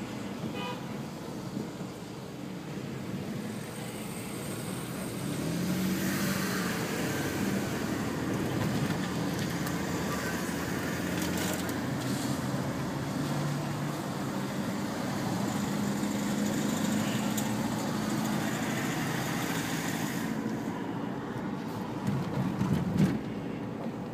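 A car driving on city streets: steady engine and road noise, with the engine's pitch drifting up and down as the car speeds up and slows. There are a few brief knocks near the end.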